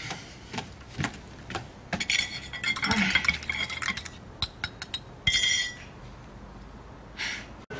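China teacups, saucers and teapot clinking and tapping against each other: scattered single clicks, then two clusters of clinks with short ringing tones.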